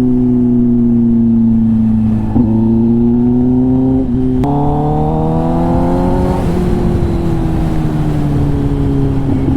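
Kawasaki ZX-10R inline-four sport bike running through an SC-Project titanium exhaust while riding. The engine note climbs, jumps up suddenly about four and a half seconds in, rises further, then falls away steadily as the bike backs off.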